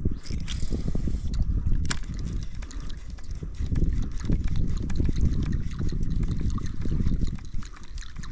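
Water sloshing and lapping against a plastic kayak's hull, under an uneven low rumble of wind on the microphone, with a few light clicks.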